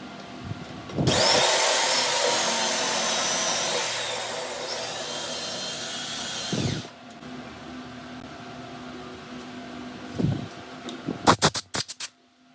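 A power tool runs loudly for about six seconds with a high whine, its pitch sliding down partway through, then stops. A quick series of sharp clicks follows near the end.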